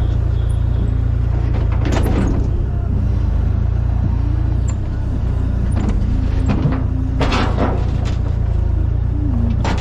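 Steady low rumble of a vehicle on the move, with music playing over it.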